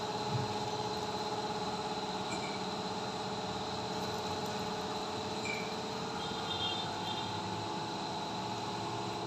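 Yamaha YTX 125's single-cylinder four-stroke engine running steadily for a chain sound check. Its freshly cleaned DID chain runs over the 14-tooth front and 45-tooth rear sprockets smoothly, with no chain noise.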